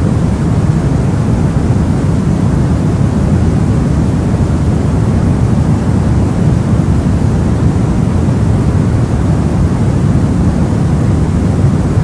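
Steady white noise of the kind played as a sleep aid: a deep, even rush with most of its weight in the low end, thinning out toward the top, unchanging throughout.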